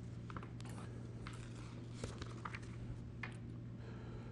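Quiet room tone with a steady low hum, broken by faint scattered clicks and rustles of handling as a plastic water bottle is picked up.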